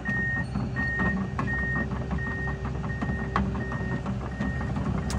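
Hydraulic excavator driving on its tracks. Its travel alarm beeps steadily, about one and a half beeps a second, over the low diesel engine, with clicks and rattles from the moving machine. The beeps fade near the end.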